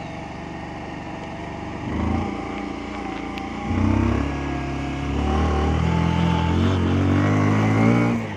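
Vehicle engine revving under load, surging briefly about two and four seconds in, then pulling hard with its pitch slowly rising from about five seconds until it eases off just before the end.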